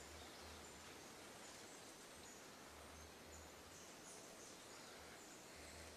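Near silence: faint outdoor background hiss, with a few faint high chirps about four to five seconds in.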